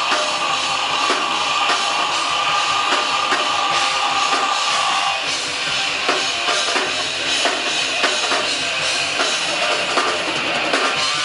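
Live band playing loudly with a drum kit and guitar. A note is held for about five seconds over the drums, then the drums carry on with rapid strikes.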